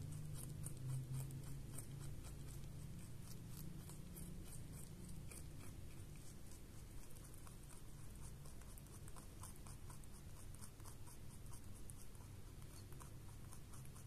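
Pet rabbit gnawing and chewing a raw carrot: fast, faint crunching clicks, several a second, over a low steady hum.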